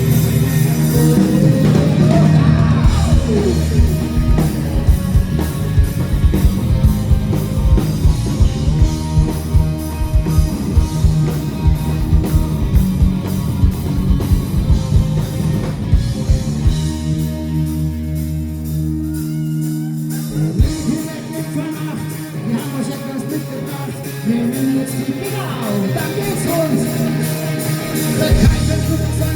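Live band playing a rock song with singing, electric guitar and a drum kit keeping a steady beat; a little past the middle the drums drop out under held chords for a few seconds before the band picks up again.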